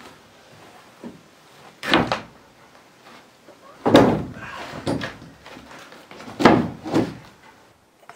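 Heavy objects being set down on an old wooden plank loft floor: a series of dull thuds and wooden knocks every second or so, the loudest about four seconds in.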